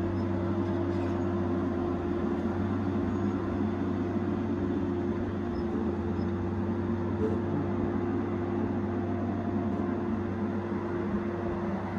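Tigercat 870C feller buncher's diesel engine running steadily, a constant low hum with a steady higher tone.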